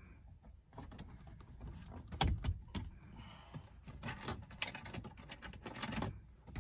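Irregular plastic clicks and knocks from a replacement 2014 Toyota Venza sun visor and its mount being pushed and fitted into the headliner, with a heavier thump about two seconds in.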